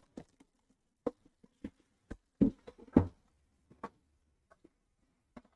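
Handling of a Panini Immaculate card box: the green cardboard outer sleeve slid off and the black inner case set down and opened on the table, giving a string of short, soft knocks and scrapes. The loudest knocks come about two and a half and three seconds in.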